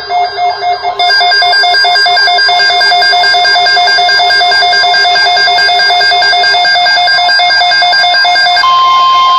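Emergency alert attention tones: a loud, rapidly pulsing electronic alarm tone that grows denser and steadier about a second in, then switches near the end to a single steady tone.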